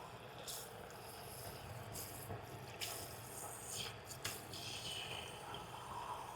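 Hot water being poured into a ceramic mug, a faint hiss with a few light knocks in the middle.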